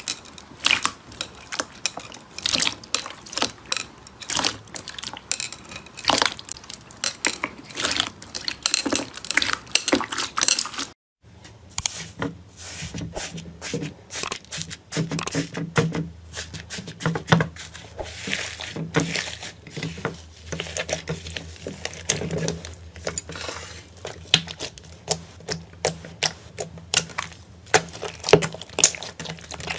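Slime being squeezed and stretched by hand, giving rapid, irregular sticky clicks and pops. It breaks off briefly about eleven seconds in, and after that a low steady hum runs under the clicking.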